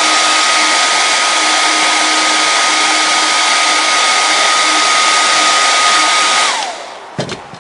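Heat gun blowing with a steady motor whine, drying contact cement on a foam seam. It switches off about six and a half seconds in, the whine falling away, and a couple of soft knocks follow near the end.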